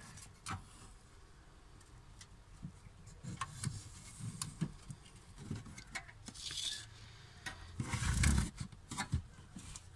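Handling noise as circuit boards are fitted back into a voltage stabilizer's sheet-metal case: scattered light clicks and knocks, a brief scrape about six and a half seconds in, and a louder bump lasting about half a second a little after eight seconds.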